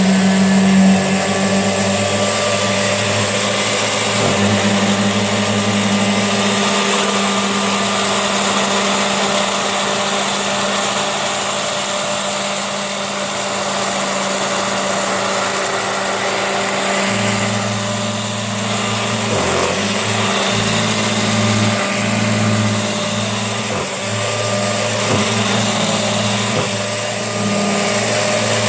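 A vintage Hoover Junior upright vacuum cleaner, nearly 70 years old, running steadily with a low hum under a high whine. Its hum shifts a little about two-thirds of the way through.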